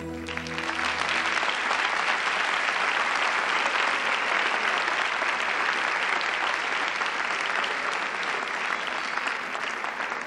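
Audience applauding steadily at the end of a choir song, the song's last low note fading out in the first second or so.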